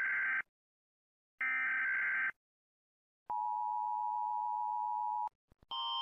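US Emergency Alert System broadcast: two buzzing SAME header data bursts, each about a second long and a second apart. They are followed by the EAS two-tone attention signal, a steady hum held for about two seconds that cuts off suddenly. Near the end, the Canadian Alert Ready attention signal starts, pulsing alternating tones growing louder.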